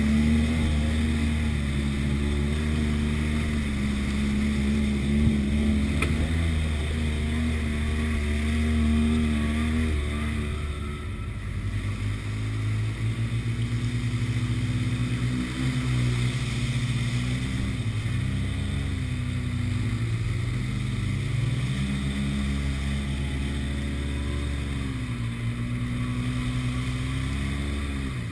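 Side-by-side UTV's engine heard from the driver's seat, running at a steady pitch for about the first ten seconds, then rising and falling again and again as the throttle is worked.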